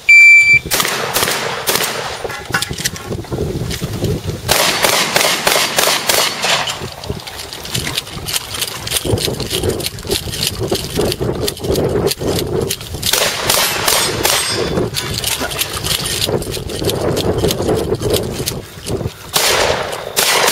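A shot-timer beep, then a shotgun fires rapid strings of shots in several bursts, with steel targets clanging and ringing as they are hit.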